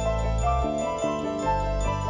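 Background music: a melody of held pitched notes over a low bass line that changes every second or so.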